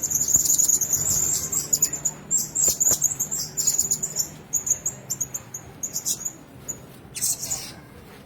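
Blue-crowned hanging parrots calling: rapid runs of thin, high-pitched squeaky chirps, dense at first, thinning out later, with a short loud burst near the end.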